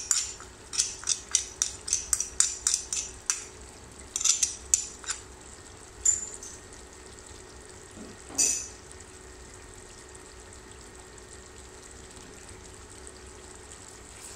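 Onions frying in hot oil, the oil crackling and spitting in quick sharp pops for the first few seconds as wet chili paste goes in, then a couple of lone pops before it settles to a quiet steady sizzle.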